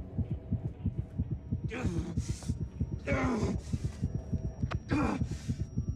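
Soundtrack heartbeat: a fast run of low heartbeat thuds throughout. Over it, a man gives heavy, ragged gasps of breath about two, three and five seconds in.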